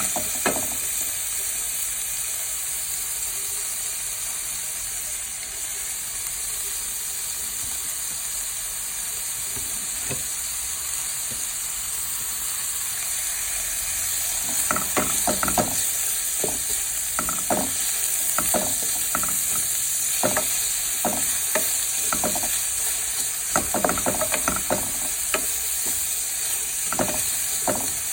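Vegetables sizzling steadily as they stir-fry in a hot pan, with a spatula scraping and clacking against the pan many times in the second half.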